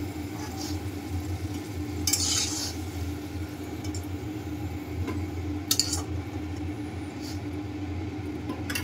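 A steel spatula scraping and clinking against a metal kadai a few times as fried potato pieces are lifted out of hot oil, over a steady low hum and a light sizzle of the oil.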